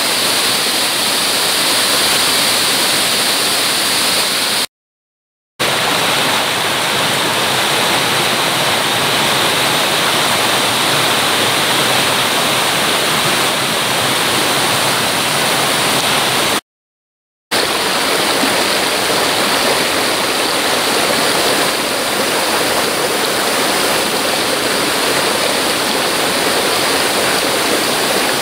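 Mountain stream rushing down small cascades over rock slabs, a loud, steady rush of water. It drops out to silence twice for under a second, about five seconds in and again about seventeen seconds in.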